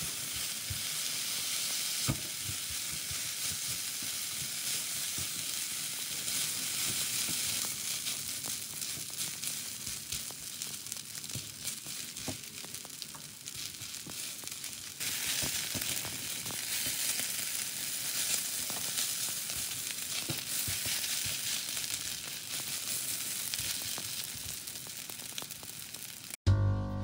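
Food sizzling steadily in a hot frying pan, with scattered light knocks of a spatula stirring it. Piano music cuts in suddenly at the very end.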